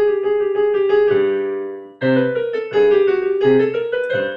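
Piano playing a short melodic phrase of sustained notes, with a brief break about two seconds in, then cutting off abruptly at the end.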